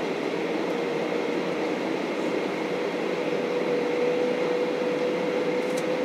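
Steady cabin noise inside a Boeing 737-800 on the ground before takeoff: an even hiss from the engines and air conditioning, with a steady mid-pitched whine running through it.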